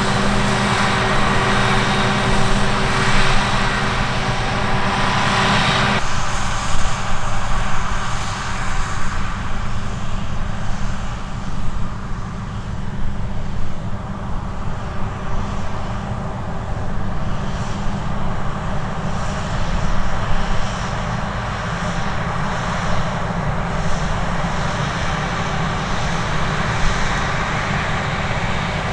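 Heavy farm machinery diesel engines running steadily under harvest work. About six seconds in, the higher part of the sound drops away abruptly, leaving a lower steady engine hum.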